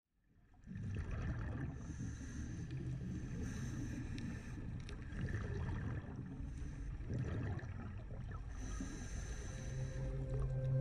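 Underwater ambience on a diving camera: a steady low rumble of water moving over the housing with fine crackling, and a short hiss twice. Music fades in near the end.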